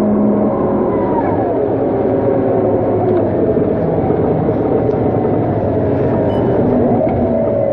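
Scania K230UB city bus's diesel engine and ZF automatic gearbox under way, heard from inside the passenger cabin. The engine tone drops sharply about a second in as a gear changes, then wavers again near the end.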